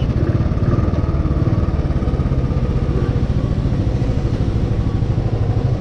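Royal Enfield single-cylinder motorcycle engine running at low revs, a steady, rapid beat that does not change, heard from the rider's seat.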